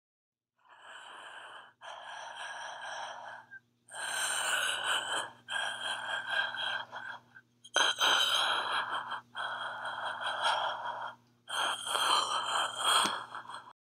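A man's long, exaggerated gasping breaths, about seven in a row, growing louder, over a faint steady electrical hum.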